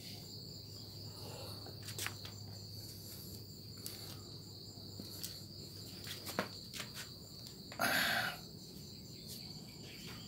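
Crickets chirring steadily in the background over a low hum. There are a few faint clicks, and about eight seconds in a short, louder rustle.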